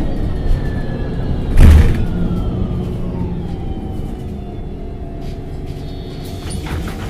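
MAN NG273 articulated bus running on LPG, heard on board: a steady engine and drivetrain rumble, with a whine that falls slowly in pitch as the level eases off, as when the bus slows. A single loud thump about a second and a half in.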